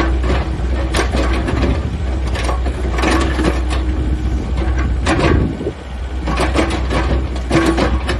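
Komatsu PC78US mini excavator's diesel engine running, with a steady low hum under irregular mechanical clicking and knocking as the boom and arm move.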